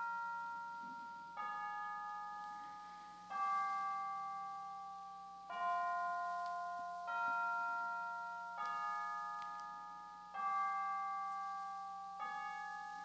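Bell-like chimes struck one after another about every two seconds, seven times, each ringing and fading before the next, the pitch changing from strike to strike like a slow tune.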